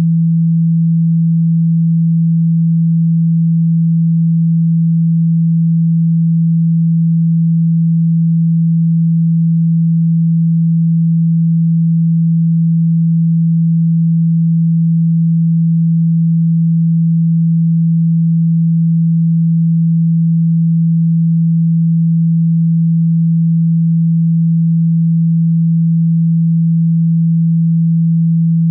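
A steady, loud, low pure sine tone that holds one pitch without change. It is a speaker-cleaning tone, played to vibrate dust, dirt and water out of a phone's speaker.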